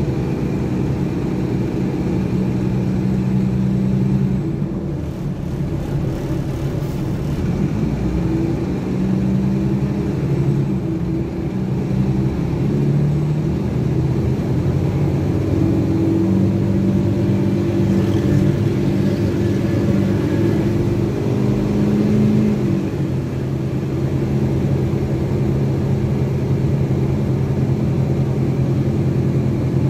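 Rear-mounted Cummins ISBe 185 inline-six diesel of a Materfer BU1115LE city bus, with its Allison automatic gearbox, heard from inside the cabin while driving. The engine note rises and falls as the bus pulls and eases off, and its pitch drops about two-thirds of the way through.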